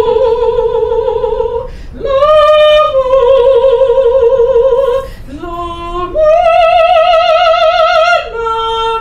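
A woman singing solo in an operatic style: long held notes with a wide vibrato, in several phrases with short breaks between them.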